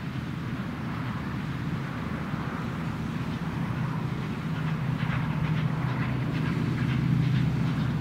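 NSW C32 class steam locomotive hauling a passenger train, its exhaust and running gear making a steady rumble that grows louder as it approaches, with short clicks from the wheels in the second half.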